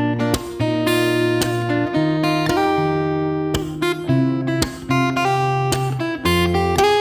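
Background music: acoustic guitar strumming chords that change about every half second to second, over a bass line.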